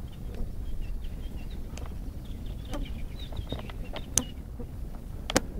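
Wind rumbling on the microphone, with faint bird chirps and two sharp clicks near the end.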